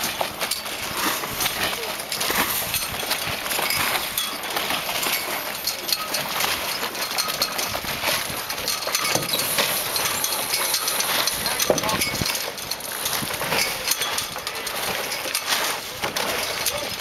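Indistinct voices over a steady rush of wind and water noise, with scattered clicks and knocks.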